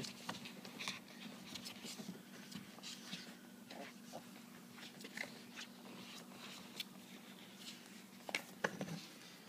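Faint scattered scratching and shuffling of a two-week-old puppy's claws and body in a bowl on a kitchen scale, over a steady low hum.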